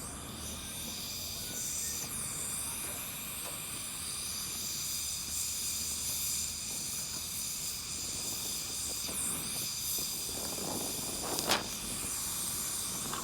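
Oxy-acetylene torch flame hissing steadily as a weld is made on a car door's sheet metal, with a brief louder burst near the end.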